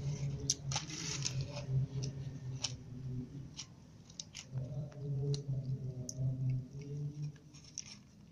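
Kittens play-fighting on a cloth cushion: irregular small scratches, clicks and rustles of claws and paws on the fabric. Under them runs a steady low hum that drops out for a second or so in the middle.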